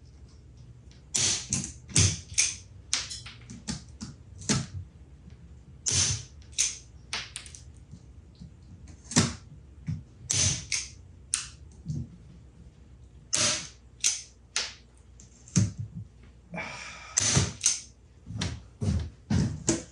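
Irregular short, sharp clicks and knocks, about twenty of them, with a longer scraping clatter a little before the end: tools and parts being handled on a wooden cabinet with a clear acrylic lid.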